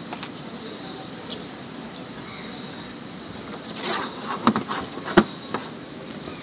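Several sharp clicks and knocks as metal scissors cut a paratha on the griddle, starting about four seconds in, the loudest a little after five seconds, over steady street background noise.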